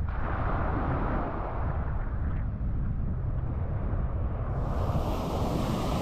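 Waves washing onto a sandy beach, with wind buffeting the microphone as a steady low rumble. About four and a half seconds in, the sound turns brighter and hissier.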